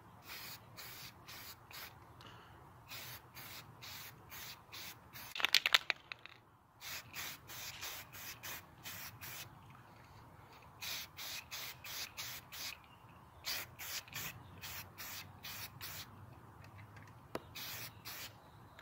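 Aerosol spray can of primer hissing in many short bursts as it is sprayed on and off. A brief run of rapid clicks about five and a half seconds in is the loudest moment.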